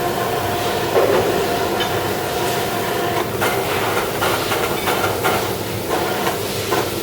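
CNC vertical turning lathe running, a steady mechanical noise with a thin steady tone that stops about three seconds in, followed by irregular clicks and knocks.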